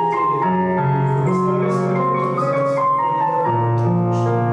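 Instrumental music led by piano: a slow melody over held chords, with a low bass note coming in about three and a half seconds in.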